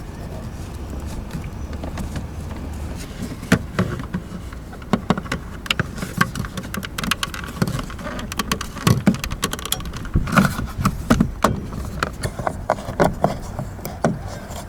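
Irregular clicks, knocks and rattles of plastic car dashboard trim and its iron mounting bracket being worked by hand to stop a squeak. They come thicker in the second half, over a low steady hum.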